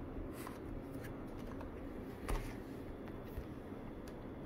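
Faint handling noise over a steady low background hum: light rustles and small taps, with a soft thump about two seconds in.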